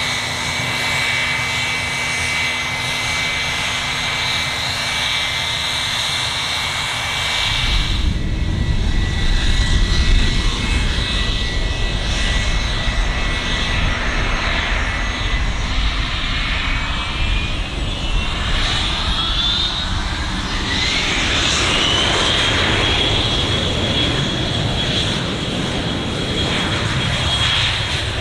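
Gulfstream G280 business jet's twin Honeywell HTF7250G turbofans whining steadily while taxiing. About eight seconds in this changes abruptly to a deep rumble, and a whine rises in pitch and then holds steady as the engines spool up to take-off power for the roll.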